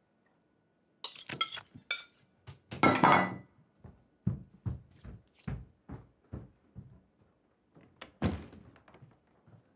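Crockery and cutlery clinking and clattering at a dinner table. The loudest clatter comes about three seconds in, followed by a run of evenly spaced dull thuds and another sharp clatter near the end.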